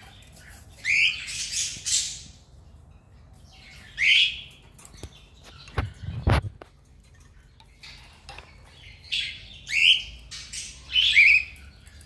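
Cockatiel calling: a string of short chirping calls that sweep in pitch, a few at the start and more bunched near the end. A single sharp knock about halfway through.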